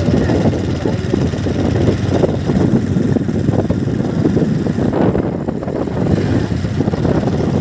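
A moving two-wheeler's engine running steadily, mixed with a low, fluttering rush of wind over the microphone.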